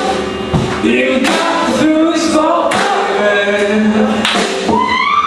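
Music with several voices singing together, like a choir, including male voices.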